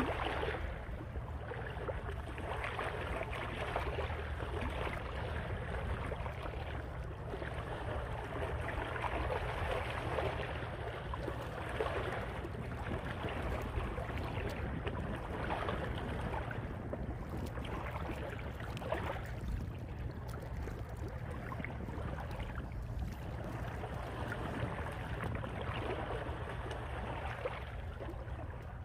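Wind rumbling on the microphone over shallow seawater lapping against rocks, with hands splashing in the water as a squid is rinsed.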